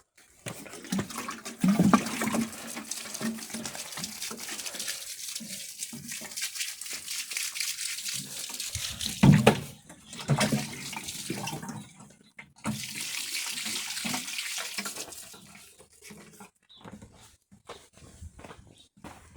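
Water running or pouring in two long spells, with a few knocks in the gap between them.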